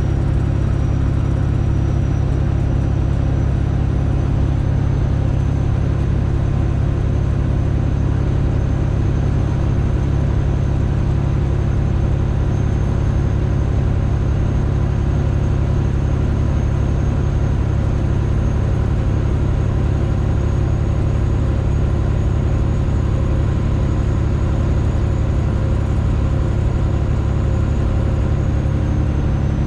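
Detroit Diesel Series 60 engine of a straight-piped Freightliner Classic XL running at steady revs: an even, loud low exhaust drone. A faint high whine over it rises slightly a few seconds in and drops near the end.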